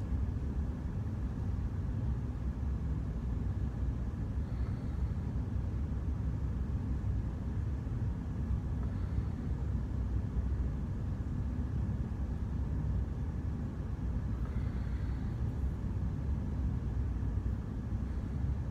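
Steady low rumbling background noise with a faint constant high hum, like a room's ventilation, and a few faint soft sounds about 4, 9 and 15 seconds in.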